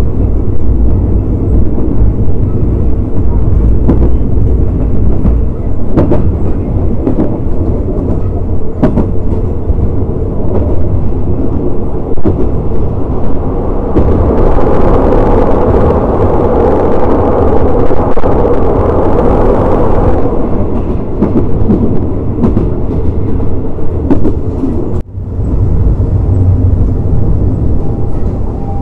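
Moving passenger train heard from an open carriage window: a steady rumble of wheels on rail with occasional clacks over rail joints. About 14 s in, the sound grows louder and harsher for several seconds as the train crosses a steel girder bridge.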